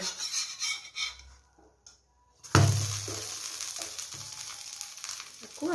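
A metal spatula scrapes under a rice-and-black-gram pancake (kadei pitha) in a kadai, then after a brief near-silent gap a sudden thump as the pancake is turned over, followed by steady sizzling of the frying oil around it.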